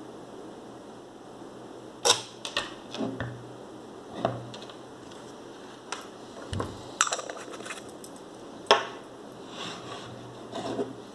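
Zorki 1 rangefinder camera being handled: sharp mechanical clicks and light knocks at irregular intervals, with a quick run of small clicks about seven seconds in.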